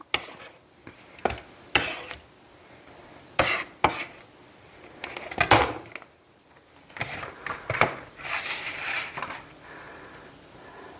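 Scattered separate knocks and clicks of a kitchen knife and a plastic bowl being handled on a wooden cutting board and stone counter, then a longer rustling scrape after about seven seconds.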